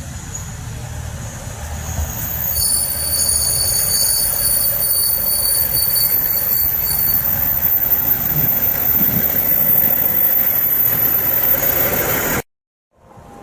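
Hokkaido Shinkansen train running past on the station tracks: a rumble that grows louder, with a steady high-pitched whine over it. It cuts off abruptly near the end.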